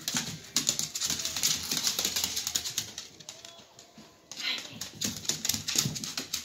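Dogs scuffling in play, a dense patter of scrabbling and clicking, in two spells with a lull about three to four seconds in.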